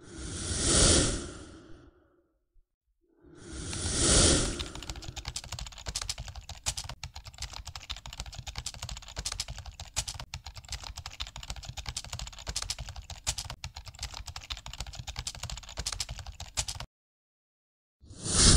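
Two whoosh transition sound effects, then a long, dense run of rapid clicks like keyboard typing that stops abruptly about a second before a third whoosh near the end.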